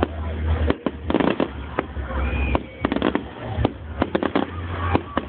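Fireworks display: aerial shells bursting overhead, a rapid run of about a dozen sharp bangs and crackles at irregular intervals.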